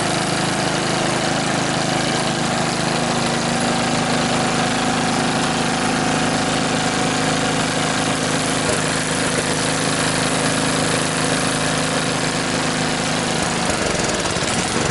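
Five-horsepower rototiller engine running steadily, belt-driving the impeller of a grain impact huller. Near the end its pitch falls as it slows.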